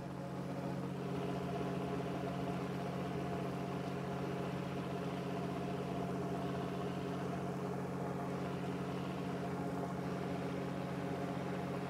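Fishing boat's engine running steadily: an even, unchanging low hum.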